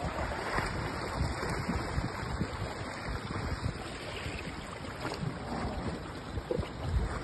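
Wind buffeting the microphone in gusts over the steady wash of surf breaking on the rocks.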